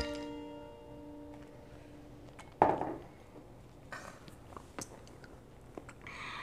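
The last notes of background music ring on and fade over the first two and a half seconds. Then the sounds of drinking juice from a glass mug close to a clip-on microphone: one sudden loud sound about two and a half seconds in, a few faint clicks after it, and a short soft rush of noise near the end.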